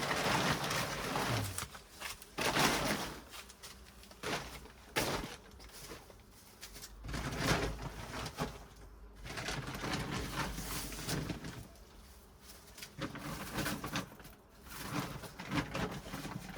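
A dove cooing in the background, over intermittent rustling and bumping as gardening containers are handled.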